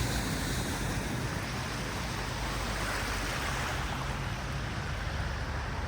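Steady rush of floodwater across a flooded ford, with a low vehicle engine hum underneath.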